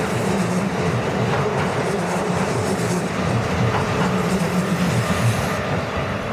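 Keikyu 1500-series commuter train running past at close range: a steady rumble of wheels on rail with clickety-clack over the rail joints. The higher hiss falls away about five and a half seconds in.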